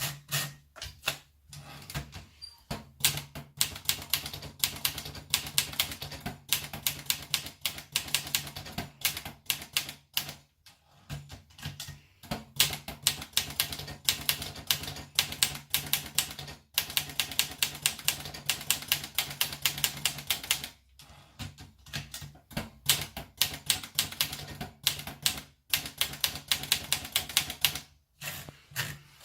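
Olivetti Dora portable manual typewriter being typed on: quick runs of sharp key and typebar strikes, about five or six a second, broken by brief pauses.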